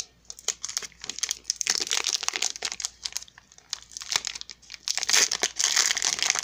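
Foil Pokémon booster pack wrapper crinkling and tearing as it is pulled open by hand: a run of sharp crackles that grows denser and louder about five seconds in.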